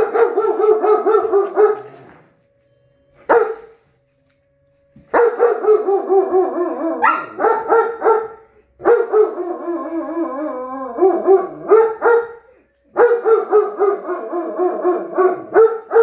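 German Shepherds howling and yelping in long, wavering, pulsing stretches with short breaks between them, the pitch sliding up and down in places. It is an anxious reaction to tornado sirens.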